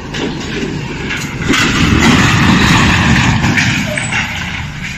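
Zoomlion truck crane's diesel engine running as the crane drives by. It comes as a continuous rough noise that grows louder about a second and a half in and eases off near the end.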